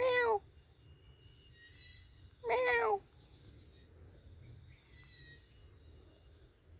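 A domestic cat meowing twice, the first right at the start and the second about two and a half seconds in, each call short and falling in pitch.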